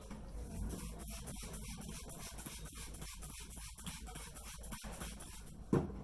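Massage of the head: hands rubbing and tapping through the hair, making a dense, shaker-like rustle. One sharp, loud knock comes near the end.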